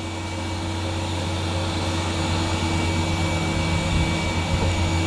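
Steady mechanical hum from a machine running in the background: a low drone with a thin high-pitched tone over it, growing slightly louder.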